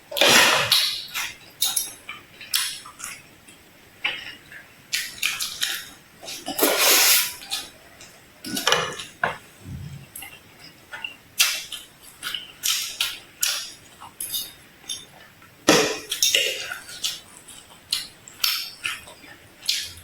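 Irregular short bursts of kitchen handling noise, with rustling and clinks of dishes and utensils, separated by brief quieter gaps.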